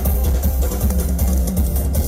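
Loud live band music played through a sound system, with heavy bass.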